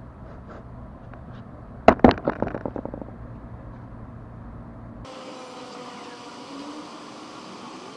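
A burst of rattling knocks about two seconds in, dying away over about a second: the foam FPV plane and its onboard camera clattering as the plane is put down on paving stones. After that, only a faint steady hum.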